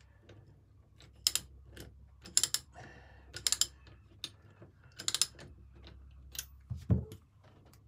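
Socket ratchet wrench clicking in short bursts about once a second as bolts on a steel split shaft coupling are tightened, with a dull knock near the end.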